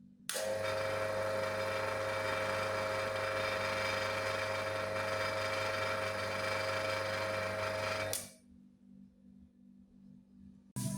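An electric motor running at a steady speed with an even hum, starting abruptly and cutting off after about eight seconds.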